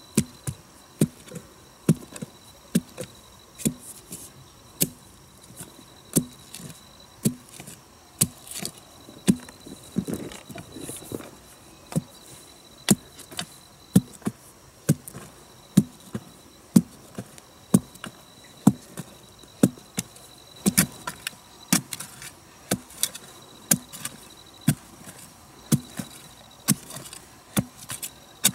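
Hand tool striking hard and repeatedly, about once a second, with insects trilling at a steady high pitch in the background.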